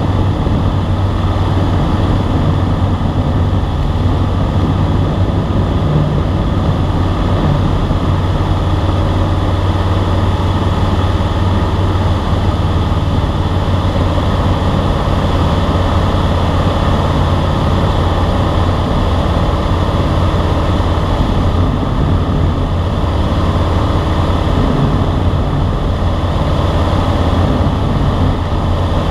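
Single-engine light airplane's piston engine and propeller droning steadily in flight, heard from inside the cabin as a loud, even low hum.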